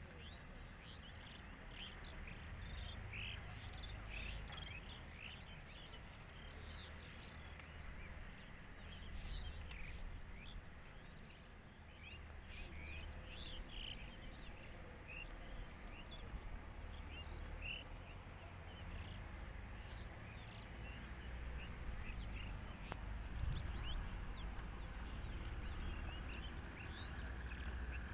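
Outdoor ambience of many small birds chirping, short high calls several times a second, over a low rumble that grows louder in the last few seconds.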